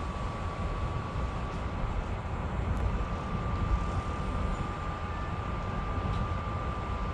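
Steady low rumble of a moving vehicle heard from inside its cabin, with a constant high whine held throughout.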